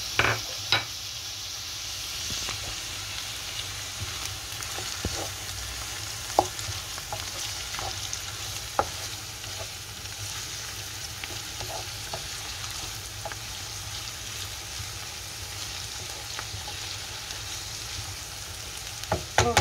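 Chopped liver and onions sizzling in oil in a frying pan while a wooden spoon stirs them, with a few sharp knocks of the spoon against the pan.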